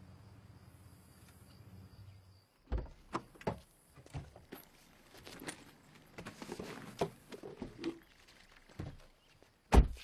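Foley of someone moving about inside a vehicle: a string of knocks, clicks and rustles as gear is handled, ending with the vehicle's door slammed shut, the loudest thump, just before the end. The first two seconds hold only a faint steady outdoor hum.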